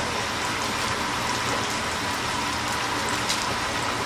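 Battered chicken karaage deep-frying in a stainless commercial fryer: hot oil sizzling and bubbling steadily, sounding like rain.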